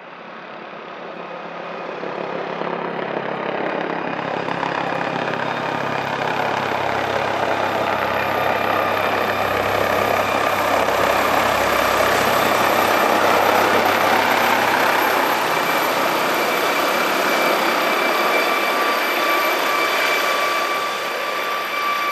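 MD Helicopters MD Explorer NOTAR twin-turbine helicopter approaching and coming in to land, its rotor and turbine noise growing louder over the first dozen seconds and then holding steady, with a high turbine whine running through it, as it settles into a low hover over the pad.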